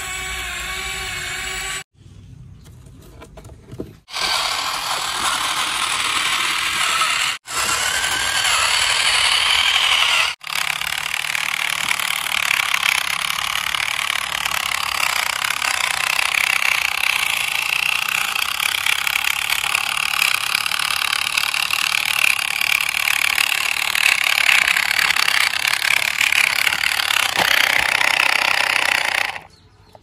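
Small electric gear motors of toy RC vehicles whirring steadily under load. The sound is cut off briefly several times in the first ten seconds and stops just before the end.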